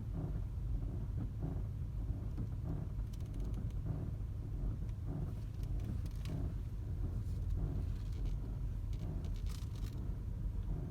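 A 2014 Chevrolet Malibu making an unidentified noise: a steady low rumble with an evenly repeating pulse a little under twice a second, plus a few faint clicks. Four mechanics have not found its cause.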